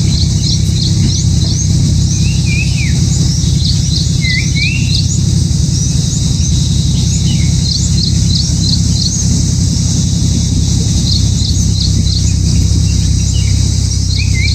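Small birds chirping: runs of four to six short, high, rising chirps, repeated several times, with a few lower slurred calls, over a loud, steady low hum.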